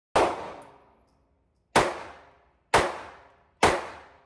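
Four shots from a Beretta Model 948 .22 LR semi-automatic pistol, each a sharp crack that echoes off the walls of an indoor range. The shots come irregularly, about a second and a half apart at first and then under a second apart.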